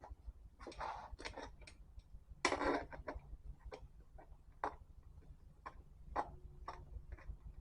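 Irregular light clicks and taps from hand tools and engine parts being handled and fitted, with two short scraping bursts, the louder one about two and a half seconds in.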